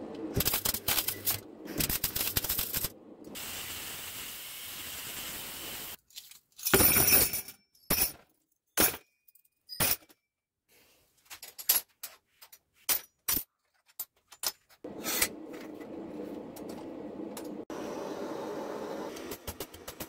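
Stainless steel cutlery being cut and handled on a steel bench: a string of sharp metallic snips, clinks and clatters, with two stretches of steady hiss between them, the longer one near the end.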